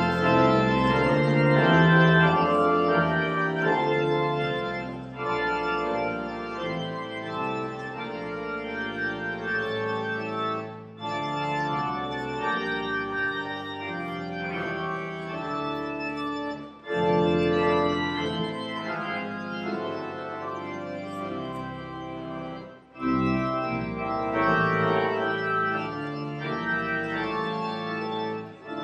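Organ music: slow, sustained chords played in phrases, with three brief pauses between phrases.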